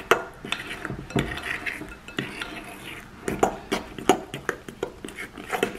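Metal fork stirring wet cake batter in a glass mixing bowl, with irregular clinks and scrapes as the fork hits and drags along the glass.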